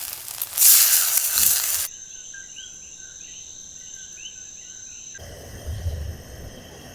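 Food sizzling on a hot grill for about two seconds. Then the sound changes to a steady high insect drone with repeated short chirps, and near the end to a quieter outdoor hiss with a brief low rumble.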